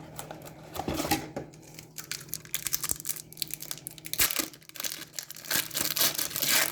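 A trading-card pack wrapper being torn open and crinkled by hand, in a run of short rustling rips that grows busier and louder in the second half.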